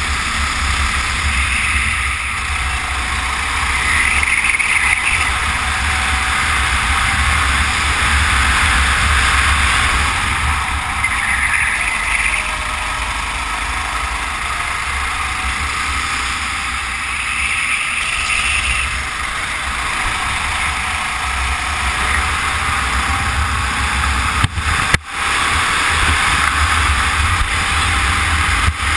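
Racing kart engine running at speed, with wind rumbling on the microphone. The sound is loud and steady, and drops out sharply for a moment near the end.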